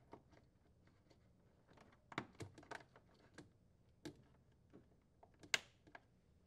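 Faint scattered clicks and taps of a wiring harness and its bushing being handled and pushed into place in a wine cellar's liner. A few clicks cluster about two seconds in, with a sharper single click near the end.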